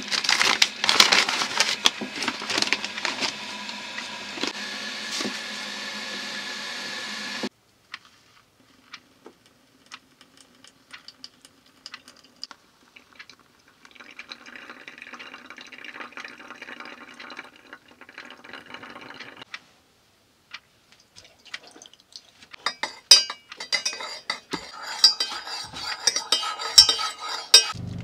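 Kitchen handling sounds in quick cuts: a paper coffee filter rustling as it is fitted into a silicone pour-over dripper, then hot water poured steadily onto coffee grounds for about five seconds, then a plastic bread bag crinkling loudly.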